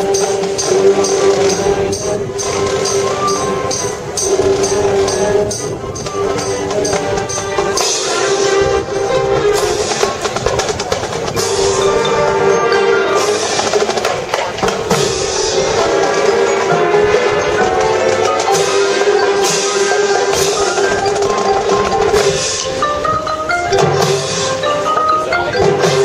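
A high school marching band playing its competition show: brass and winds carry sustained chords and moving melodic lines over mallet percussion and tambourine. A fast, even tambourine-like ticking runs under the first several seconds.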